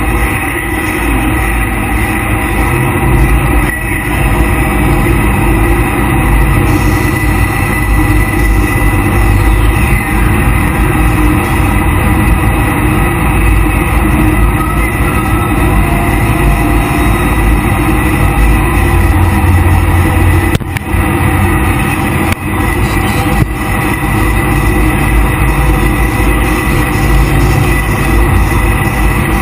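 Jet boat running at speed: a loud, steady rush of engine, water and wind on the microphone, with a few brief dips about two-thirds of the way through.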